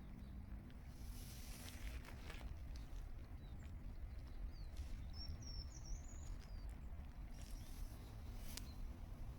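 A duck dabbling and splashing in the water as it feeds, in two short bursts, with a brief high chirping call in between, over a low steady outdoor rumble.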